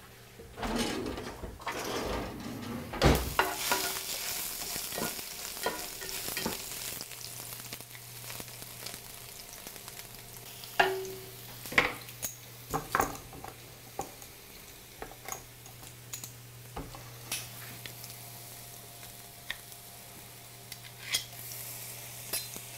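Ginger sizzling in a hot electric frying pan, a steady hiss that is louder in the first several seconds and then settles, with scattered sharp clicks and knocks of kitchen utensils.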